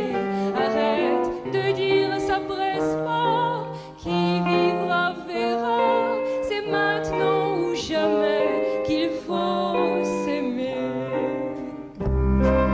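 A woman sings a French chanson with a wavering vibrato, accompanied by a band. Near the end the band comes in fuller and louder, with a strong low bass line.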